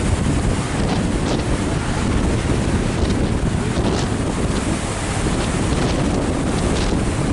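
Strong wind buffeting the microphone: a loud, steady rumbling hiss that covers everything else.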